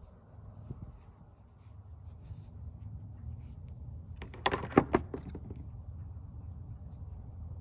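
Rocks knocking together in the hand, a quick run of four or five sharp clacks about halfway through, over a steady low rumble.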